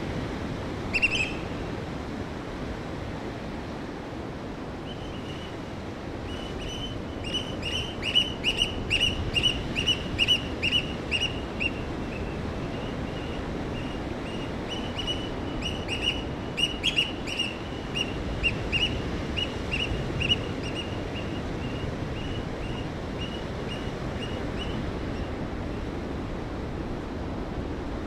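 Steady rush of a large waterfall, with a small bird calling over it. There is a single chirp about a second in, then from around five seconds a long run of quick chirps, about four or five a second, that tails off a few seconds before the end.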